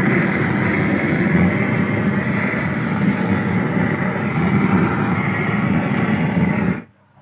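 Hand-held gas torch roaring steadily as its flame is played over a whole chicken to singe it, cutting off abruptly near the end.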